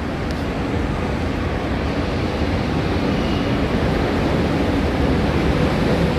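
RER A MI09 double-deck electric train pulling into the platform and running close past: a steady rumble of wheels and cars going by, growing slightly louder.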